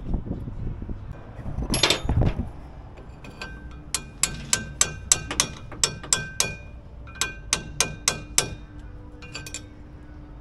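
Hammer blows on steel at a military wrecker's winch: sharp ringing metallic strikes, about three a second, in two runs with a short pause between. A louder clatter of metal comes about two seconds in.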